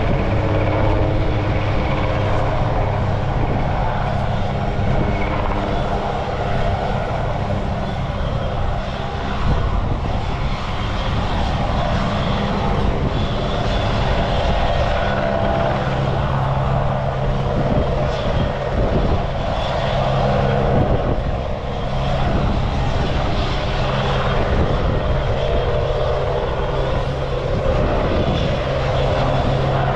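RAF Puma helicopter running on the ground, its engines and rotor making a steady, loud drone.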